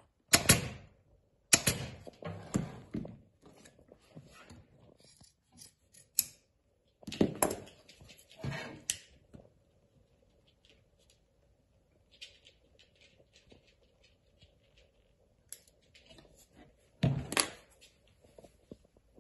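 Pneumatic staple gun firing staples into a saddle seat: a series of sharp shots in quick clusters over the first half, then small handling clicks, and another loud shot near the end.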